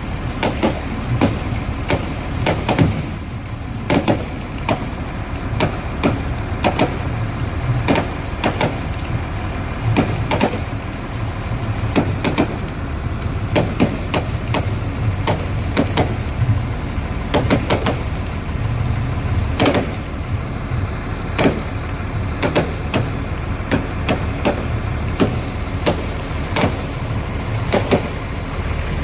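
Aerial fireworks bursting: a rapid, irregular string of sharp bangs and crackles, several a second, over a steady low rumble.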